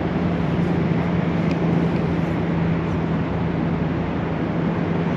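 Steady rushing noise with a constant low hum underneath, unchanging throughout.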